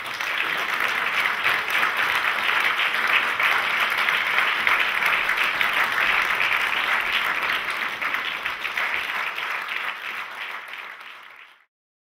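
Audience applauding, a dense steady clapping that thins slightly near the end and then cuts off abruptly.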